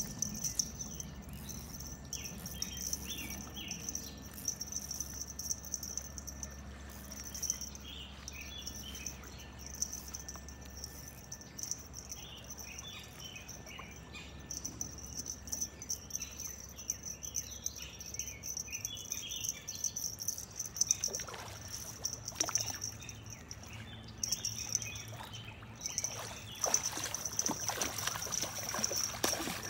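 Hooked channel catfish splashing and thrashing at the surface close to the bank, in short bursts about two-thirds of the way in and then steadily near the end. Under it runs a steady high insect buzz, with birds chirping.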